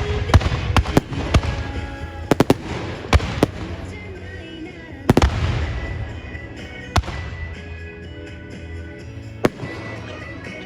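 Aerial fireworks bursting: a rapid volley of sharp bangs in the first few seconds, a big burst about five seconds in with its sound trailing off, then two single bangs, with music playing along underneath.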